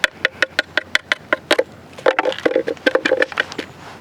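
Thin creek ice being cracked and broken by hand: a quick series of sharp cracks and clicks, several a second, with a denser crunching stretch past the middle.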